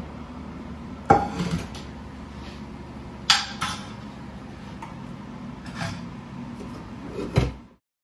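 Clatter of dishes, pans and a dishwasher's wire rack as a loaded lower rack is handled and pushed in: a handful of separate knocks and rattles, the sharpest about a second in and about three seconds in, with a last thump near the end.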